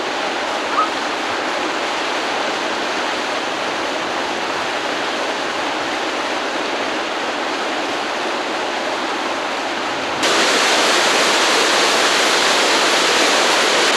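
Steady rushing of a waterfall pouring over rock ledges. About ten seconds in it abruptly jumps louder and hissier, heard from right beside the falls.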